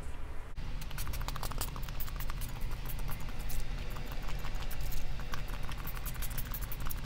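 Pump-spray bottle of Wet n Wild Coconut primer water spritzed repeatedly at the face as a setting mist: a dense run of faint clicks and short spritzes starting about half a second in, over a low steady hum.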